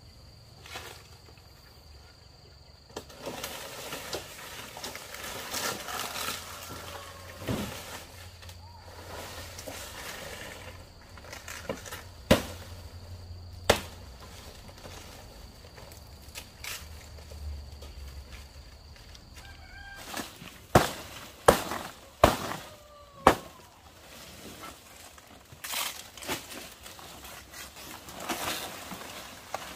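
Sharp knocks or chopping strokes: two single ones around the middle, then a quick run of five close together later on, among rustling handling noise. A faint steady high tone stops about two-thirds of the way through.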